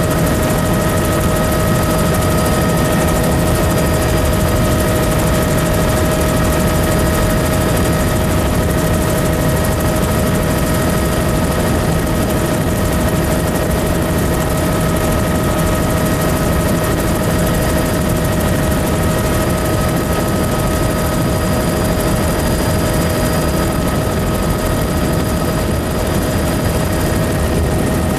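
Helicopter running close up: a loud, steady rush of rotor and engine noise with a constant whine through it that holds one pitch.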